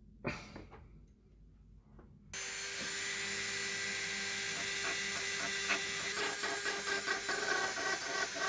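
A sharp click near the start, then from about two seconds in a handheld rotary tool with an abrasive wheel runs steadily. The wheel grinds rust off a small steel part of the bayonet, with an uneven rubbing as it bites.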